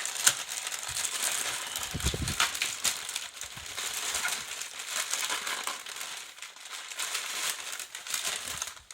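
Plastic packaging bags crinkling and rustling as they are handled, with many small crackles and a low thump about two seconds in.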